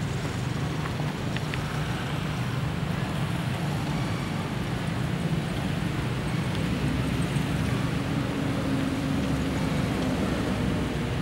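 Steady low rumble of road traffic. A vehicle's engine hum joins about halfway through.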